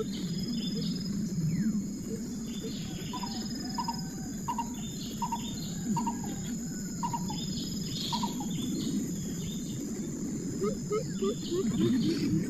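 Birds calling outdoors in short repeated notes, a run of higher notes in the middle and quick low notes near the end, over a steady drone of insects.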